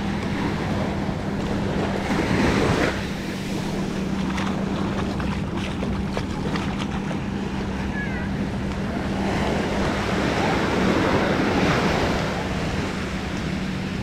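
Small waves breaking and washing up a sandy shore, surging about two seconds in and again around ten to twelve seconds, with wind buffeting the microphone. A faint steady low hum runs underneath.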